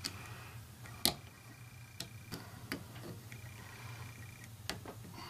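Small metal pick clicking and tapping against the steel trigger and safety mechanism of a spring-piston air rifle while prying off an E-ring clip: scattered sharp clicks, the loudest about a second in, over a low steady hum.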